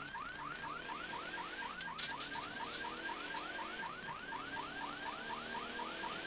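Rally car's electronic siren yelping: a quick rising wail repeating about five times a second, with the car's engine running underneath.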